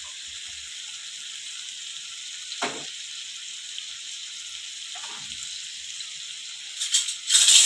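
Chicken masala sizzling steadily in a tawa. A spatula strokes through it briefly twice, and near the end comes a louder clattering of utensils.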